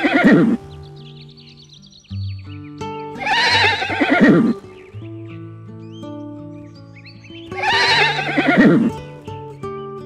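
Horse whinnying: a call tails off at the start, then two more follow about four seconds apart, each falling in pitch. Background music plays throughout.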